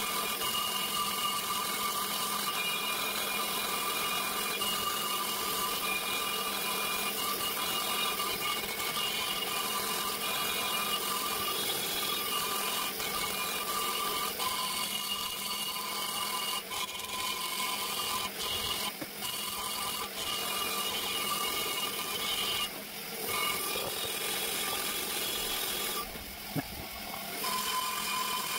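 High-speed die grinder with a long-shank burr running steadily as it cuts inside an RB26 aluminium cylinder head's exhaust port, a constant whine over hiss that eases off briefly twice in the second half while the port is reshaped.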